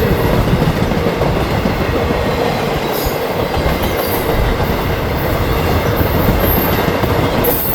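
CSX intermodal freight train rolling past at close range: a steady, loud rumble of wheels on rail with clickety-clack and a faint squeal from the wheels.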